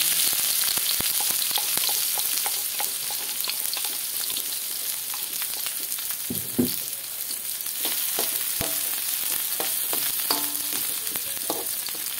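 Sliced lemongrass, ginger, garlic and shallots sizzling steadily in hot oil in a silvery metal wok, just tipped in. Scattered pops and clicks run through it, and a metal spatula scrapes and stirs against the wok near the end.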